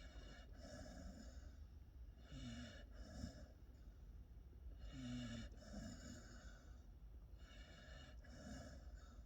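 Pit bull puppy snoring in its sleep: four slow, even breaths about every two and a half to three seconds, each with a short snore.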